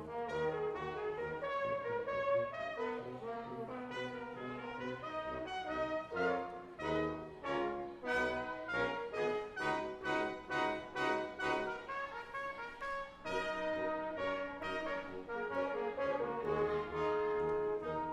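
Brass quintet of two trumpets, French horn, trombone and tuba playing an arranged pop medley, mixing held chords with short repeated notes.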